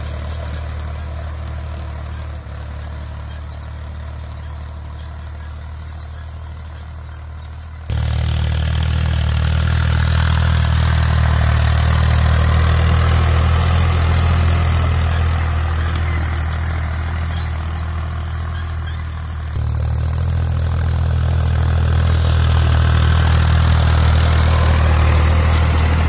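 Tractor diesel engine running steadily under load while pulling a disc plough through the soil. The sound jumps suddenly louder about a third of the way in, drops, then jumps louder again about three-quarters of the way through.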